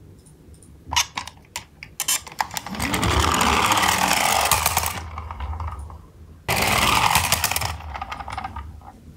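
Toy garbage truck rolling on wood, its small wheels rushing and rattling over the surface, with a few light clicks as it is set down. There are two runs: a long one of about three seconds starting near two seconds in, and a shorter one later.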